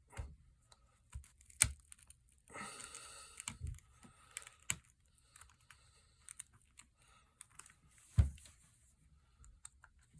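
Small repair tools clicking and tapping against a phone's glass back while it is pried off its adhesive, with a short scraping stretch about two and a half seconds in and two sharper clicks.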